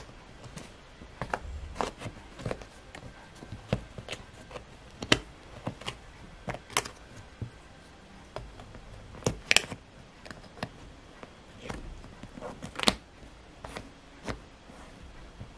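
Wooden jigsaw puzzle pieces clicking and tapping against the wooden puzzle board and each other as a toddler handles and fits them: irregular sharp clicks, a few of them louder.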